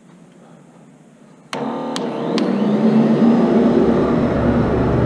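Advance ET 700 portable carpet extractor starting up about a second and a half in: a few sharp clicks, then its motors come up to speed and run with a steady hum and whine. It is fairly quiet for a carpet extractor.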